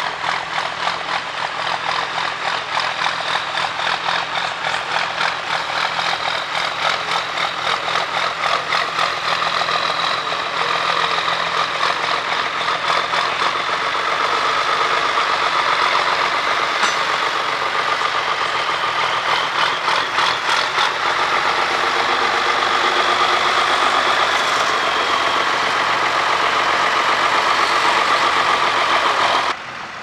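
Ford 8210 tractor's six-cylinder diesel engine working hard under load while pulling a plough through the soil, a steady rapid exhaust pulse that grows louder as the tractor comes close.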